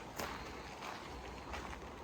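Footsteps of a person walking at an even pace, three steps about two-thirds of a second apart, over a low steady rumble.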